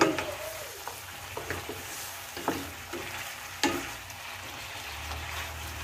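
Pork belly chunks sizzling softly in a pot as their fat renders, stirred with a wooden spatula that clacks against the pot several times.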